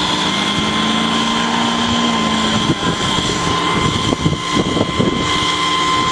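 Heavy-duty rotator tow truck's diesel engine running steadily under load, with a steady high whine over it and a few knocks about four to five seconds in.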